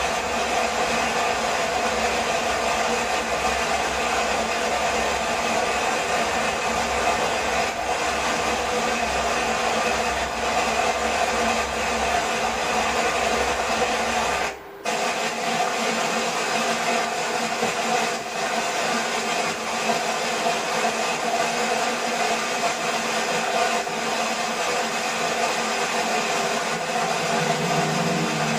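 Waterfall rushing with a steady, loud wash of noise. It drops out briefly about halfway through, and afterwards carries less low rumble.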